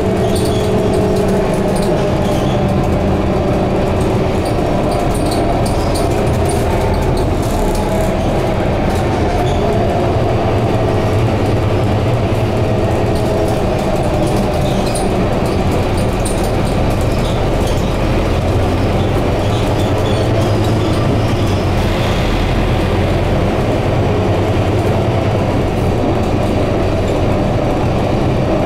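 Interior sound of a Scania K230UB rear-engined double-decker bus cruising, heard from the upper deck: a steady drone of engine and drivetrain with road noise, a faint whine that drifts a little in pitch, and light cabin rattles.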